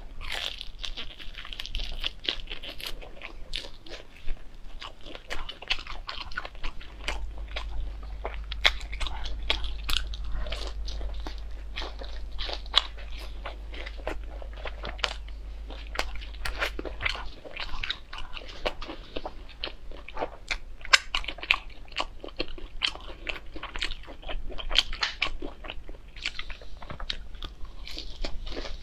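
A person biting and chewing crispy fried food, with many sharp, irregular crunches.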